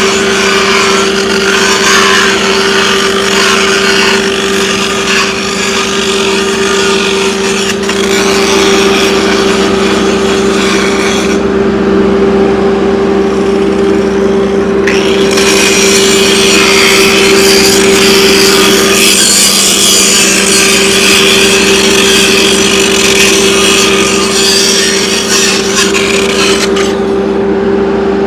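Angle grinder grinding down the 6010 root bead on a steel pipe joint before the hot pass: a steady motor whine under harsh grinding noise. The grinding drops out for a few seconds about eleven seconds in, then resumes, and eases off near the end.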